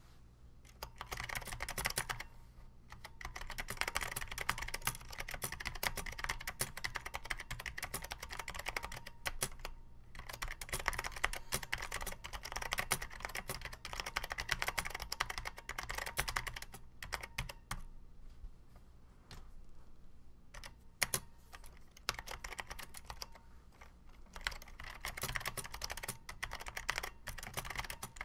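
Typing on an Apple Extended Keyboard II with tactile Alps-style Mitsumi switches and PBT keycaps: a dense stream of key clacks, starting about a second in, with a few brief pauses.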